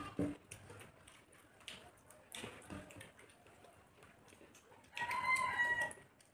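A rooster crowing once, a pitched call lasting about a second, near the end. Before it, faint clicks and smacks of hands eating rice from plates.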